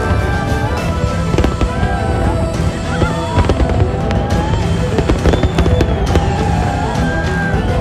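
Fireworks bursting and crackling in quick succession, with music playing loudly over them.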